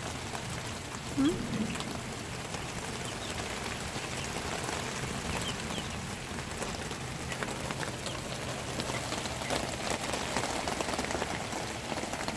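Steady rain falling during a rainstorm, an even hiss of drops throughout. A brief rising sound comes about a second in.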